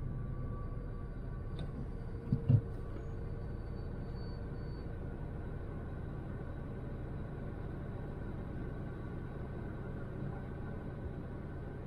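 A 2006 Ford Focus with a 100 bhp petrol engine being driven: a steady engine and road rumble, with two short thumps about two and a half seconds in.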